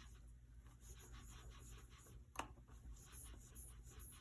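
Near silence, with faint light scratching and handling noises and one sharper click about two and a half seconds in, as the plane blade and its sharpening jig are handled between stones.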